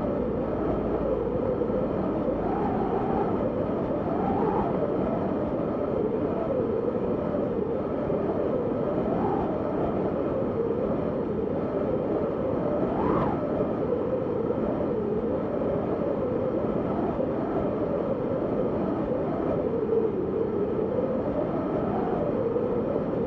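Snowstorm wind blowing steadily, its pitch wavering up and down with the gusts, with a brief higher whistle about thirteen seconds in.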